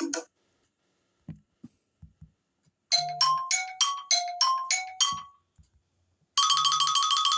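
iPhone XR ringtone previews on iOS 16. A short chiming tune of about eight quick notes alternating between two pitches plays about three seconds in, and near the end a rapid, continuously repeating ringing tone starts. Faint ticks fall in the pauses between them.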